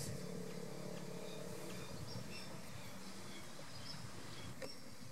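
Open-air ambience: scattered bird chirps over a steady low hum, with a single light click near the end.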